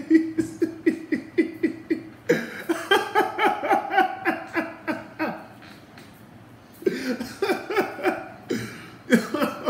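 A man laughing hard in a run of short, repeated ha-ha pulses, in bouts with a brief lull after the middle.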